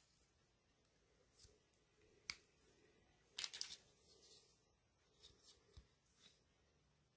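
Faint clicks and taps from handling a small pocketknife and a plastic ruler: one sharp click about two seconds in, a quick cluster of clicks at about three and a half seconds, and a few lighter ticks near the end.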